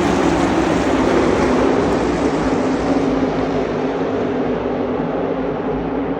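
NASCAR stock cars' V8 engines running at speed on the track: a dense, loud engine drone whose pitch sags slightly and whose top end fades over the last few seconds as the cars move away.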